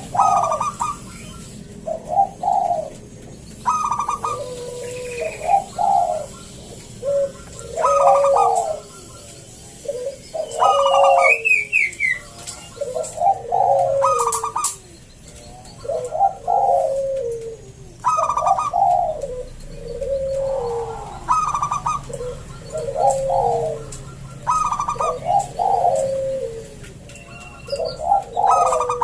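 Local zebra dove (perkutut) singing its deep, full-voiced cooing song, phrase after phrase of a few rolling coos with hardly a pause between them.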